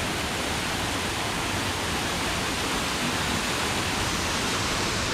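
Waterfall rushing steadily: water falling down a tall rock face, an even hiss that doesn't change.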